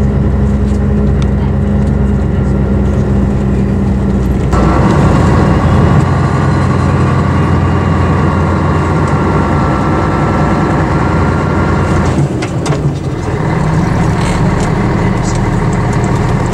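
Diesel engine of a Scania-chassis Ikarus EAG 395 bus heard from on board, running steadily, then working noticeably harder from about four and a half seconds in. Near the end it drops back for a moment, as at a gear change, before running steadily again.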